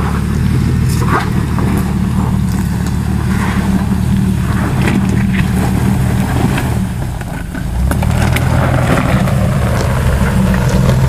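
Jeep Wrangler engine running steadily at low revs as the Jeep crawls down a rocky trail, with scattered clicks and crunches of stones under the tyres.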